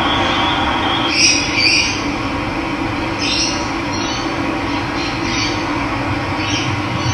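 Steady rush of running water with birds calling over it: short, high calls repeated about every second.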